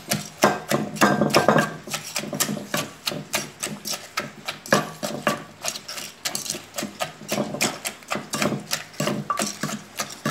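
A wooden pestle pounding in a clay som tam mortar, bruising tomatoes into the chilli, garlic and seasonings, in a quick, steady rhythm of knocks.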